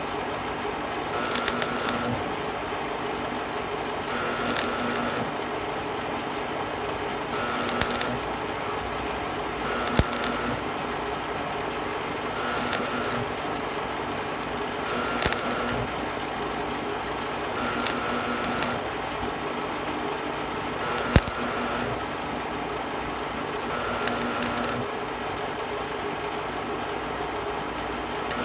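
Arc of a Miller Thunderbolt 250 AC stick welder crackling steadily as an electrode runs a bead on thin plate, with a few sharp pops.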